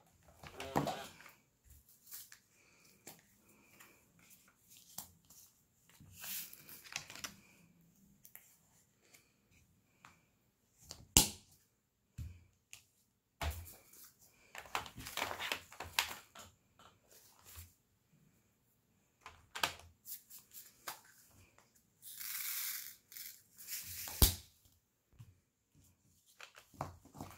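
Diamond painting by hand: resin drills rattling in a plastic tray and the clear plastic cover film rustling, in short bursts with pauses between. Two sharp clicks stand out, one about halfway through and one near the end.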